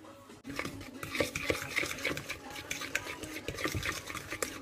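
A utensil stirring thick chocolate cake mixture in a large bowl, a busy run of scrapes and small knocks against the bowl that starts about half a second in.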